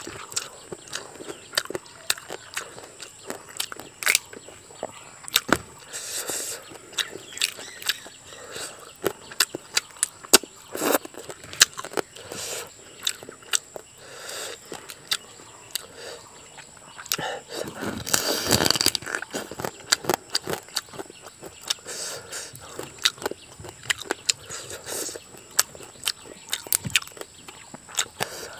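Close-miked eating sounds: a person chewing and smacking mouthfuls of rice with boiled crab eaten by hand, full of short wet clicks and smacks. A louder, longer burst of noise comes about two-thirds of the way through.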